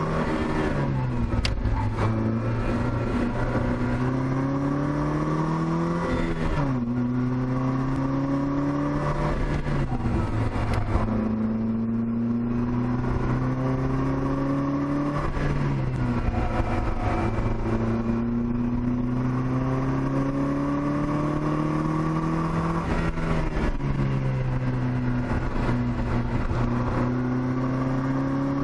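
The Opel Speedster's 2.2-litre four-cylinder engine, heard from inside the open cockpit, pulling hard on track. Its pitch climbs steadily for several seconds, then drops quickly as the gears change, about four times, over steady road and wind noise.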